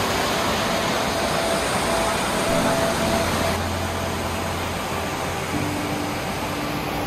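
Steady rushing of a stream pouring over rocks in a small waterfall, with a faint low hum underneath.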